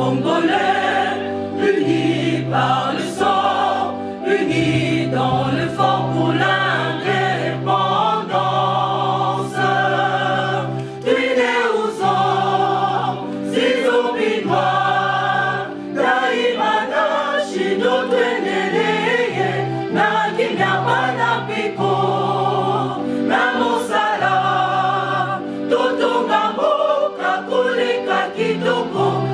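Music: a choir singing over a backing band with repeating held bass notes, in a gospel style.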